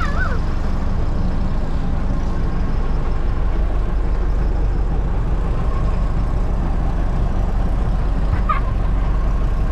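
A small canopied motorboat's engine runs steadily under way, a constant low drone over the wash of water.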